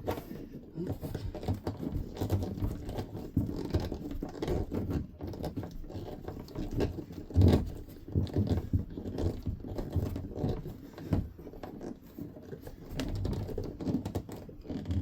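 Irregular scraping, rustling and small knocks of hand work with a screwdriver at an RV toilet, as the screws holding a new water valve are tightened down.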